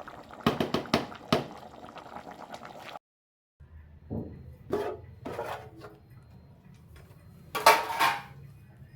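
Pot of chicken and potato stew boiling, with several sharp clinks against the pot about a second in. After a brief cut to silence, a low steady hum, a few knocks, and a louder noisy scrape near the end.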